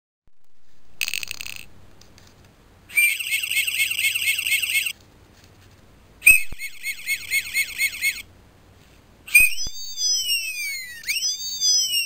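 Electronic sound effects from the DX Sirender toy, Bandai's 1996 sound-activated police-car robot: after a short high burst about a second in come two runs of fast, high warbling chirps, then a siren wail of rising and falling tones near the end.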